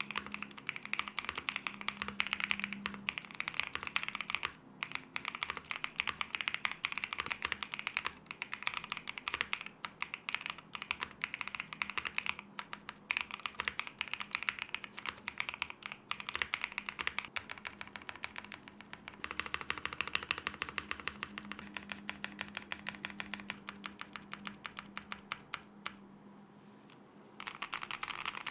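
Fast, continuous typing on a Luminkey65 65% mechanical keyboard: a dense run of key clacks, with a short pause of about a second near the end before the typing starts again.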